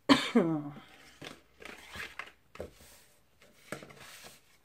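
Cardstock being handled and shifted on a craft mat: several short paper rustles and scrapes. The loudest thing is a brief voice-like sound with falling pitch right at the start.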